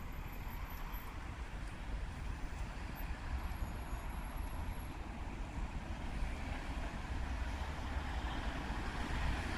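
Steady road traffic: cars and other vehicles driving past on a city road, a continuous low rumble.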